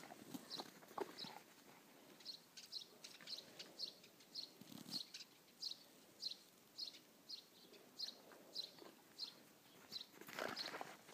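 A small bird calling over and over, with short high chirps about twice a second. There is a brief scuffing in the snow near the end.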